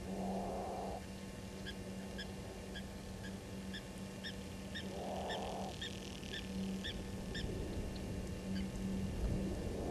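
A short, hoarse animal call repeated about every five seconds, over a steady series of short, high chirps about two a second.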